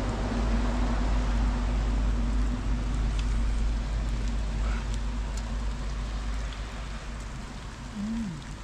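Steady rain falling, an even hiss, over a low rumble and a steady low hum that fades away about three seconds in.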